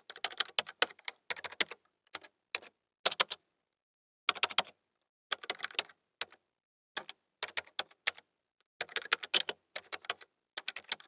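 Keyboard typing sound effect: bursts of rapid key clicks with short pauses between them.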